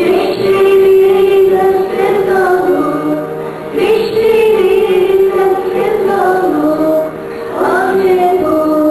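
A young girl singing a song solo into a microphone, with long held notes that bend up and down in pitch.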